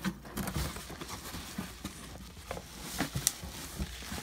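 A cardboard box being opened by hand and a bubble-wrapped object pulled out: rustling of cardboard and bubble wrap with many scattered knocks and taps, the sharpest a little after three seconds in.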